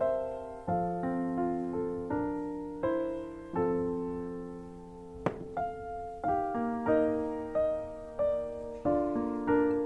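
Solo piano background music, slow single notes and chords struck one after another and left to ring. A single sharp click sounds about five seconds in.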